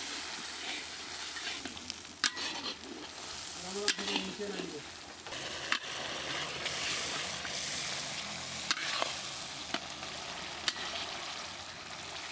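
Onion-tomato masala with ground spices frying and sizzling in hot oil while being stirred, with the spoon knocking sharply against the pan about six times.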